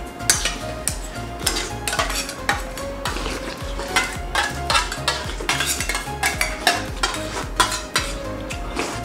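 Steel spoons clinking and scraping against stainless-steel plates as two people eat quickly, in many short, irregular clicks.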